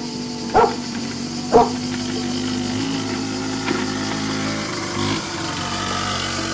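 A small scooter engine running steadily as the scooter rides down a gravel track. Early on, two short barks about a second apart cut through it.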